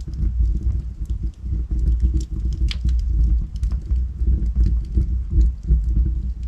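Logs burning in a fireplace: a steady low rumble of the flames with frequent small crackles and pops of the firewood, and one sharper pop a little before halfway.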